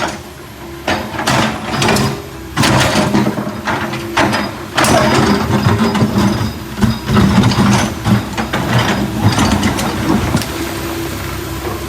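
Backhoe engine running steadily, with repeated metallic clanks and scraping from its digging gear throughout.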